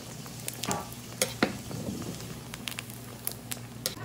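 Pork rinds (torresmo) deep-frying in a large pot of bubbling pork lard: a steady sizzle with frequent short, sharp pops.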